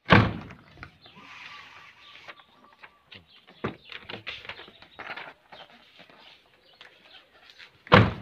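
Mitsubishi Pajero Sport door being shut hard twice, a loud thud right at the start and another near the end, with small knocks and clicks in between. The door closes on an old rubber weatherstrip, worn out and no longer keeping out noise and wind.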